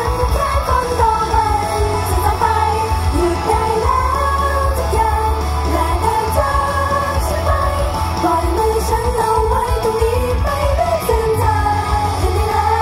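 Pop song with female vocals over a heavy bass line, played loud through a stage PA system.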